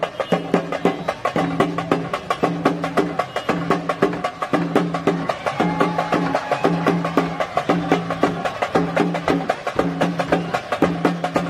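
Drum ensemble playing for a huli vesha tiger dance: fast, dense drumming with a low two-tone beat repeating about once a second.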